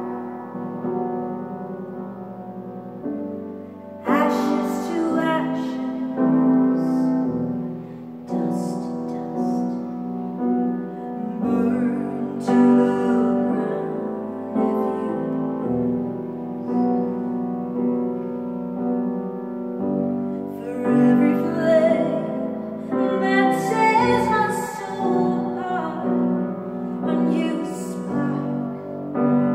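A woman singing a slow ballad to grand piano accompaniment. The piano plays softly alone at first, and her voice comes back in about four seconds in.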